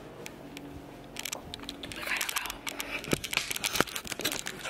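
Irregular crackling, crinkling and clicking handling noises, busier from about a second in, over a faint steady low hum.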